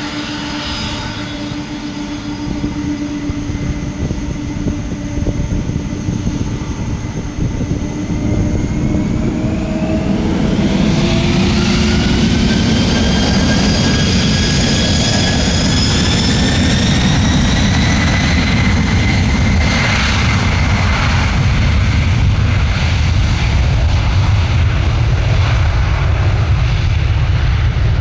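Boeing 747-400F freighter's four jet engines spooling up for takeoff. A steady whine first, then several whines rising in pitch from about eight seconds in, the engines growing louder near the middle and holding at takeoff power with a heavy rumble.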